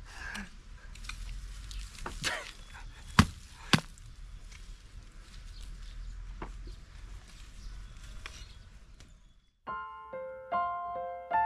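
A hand hoe chopping into garden soil while digging potatoes: a few sharp strikes, the loudest two just over three seconds in, over steady outdoor background. Near the end the field sound cuts off and piano music begins.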